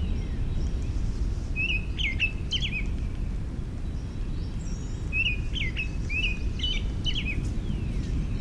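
A songbird singing the same short phrase three times: a brief steady note followed by a few quick up-and-down whistled notes. A steady low rumble underlies it throughout.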